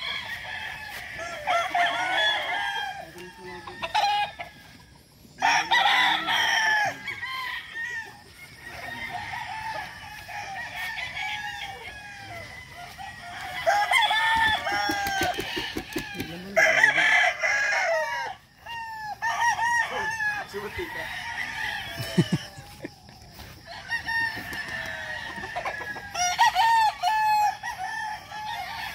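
Many gamefowl roosters crowing, one crow after another and overlapping, with no break between them.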